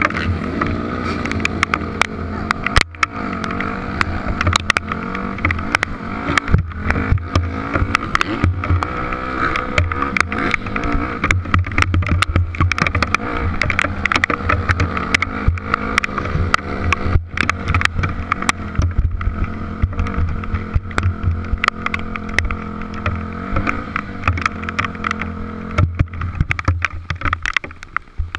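Dirt bike engine running at low revs, its pitch rising and falling as the bike is ridden slowly, with many sharp ticks of hail striking the helmet-mounted camera throughout.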